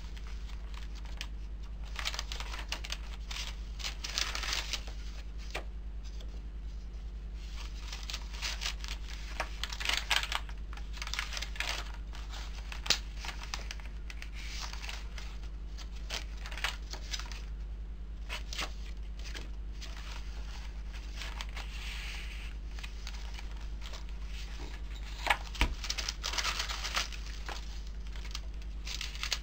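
Paper pages and ephemera of a handmade junk journal being turned and handled: irregular rustling and crinkling with a few sharp taps, over a steady low hum.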